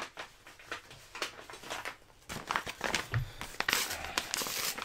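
Paper packaging crinkling and rustling as it is handled, starting about two seconds in after a few faint taps.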